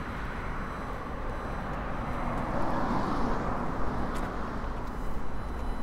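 Radio-interference noise picked up by a Tascam DR-05X handheld recorder: a steady low hum and hiss with faint high whistling tones, over street traffic that swells about halfway through.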